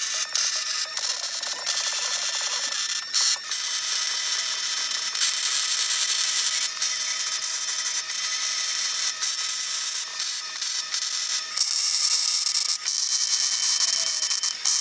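MIG welder running on the steel tubes of a roll cage: the steady crackling sizzle of a gas-shielded wire-feed arc, broken by several brief stops between stitch welds. The welder is a Longevity MigWeld 140 on C25 gas with .030" ER70S-6 wire, joining DOM steel tubing.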